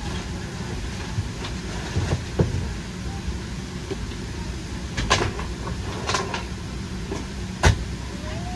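Steady low rumble of a parked Boeing 737-700's cabin ventilation, with several sharp knocks and clacks of overhead bin doors being shut; the loudest knock comes near the end.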